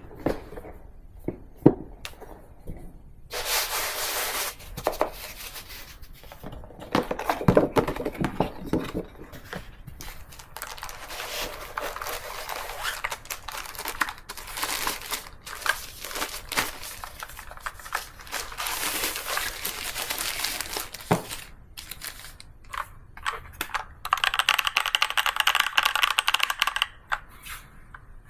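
Packaging being opened and handled: paper and plastic wrapping crinkling and tearing, with scattered knocks and scrapes against the box. About 24 seconds in there is a longer, steadier tearing or peeling sound lasting a few seconds.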